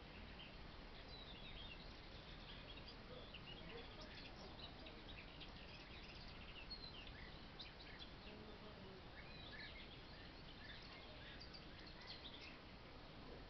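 Faint outdoor quiet with small birds chirping in scattered short calls, high-pitched and irregular.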